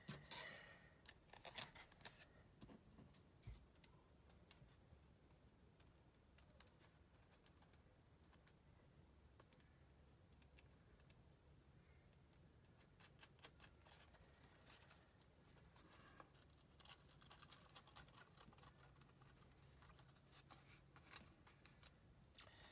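Faint clicks and scratching of small metal hardware, wire, a bolt and a washer, being handled and fitted by hand, in clusters during the first few seconds and again through the second half, with near silence between.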